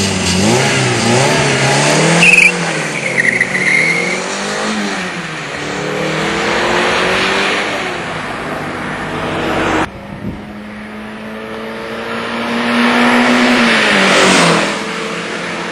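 Twin-engine Peugeot 205 with two Mi16 16-valve engines revving, then launching about two seconds in with a brief tyre squeal and accelerating away, the engine note rising through the gears and fading. After a cut it accelerates back toward the microphone and passes, the note dropping in pitch as it goes by near the end.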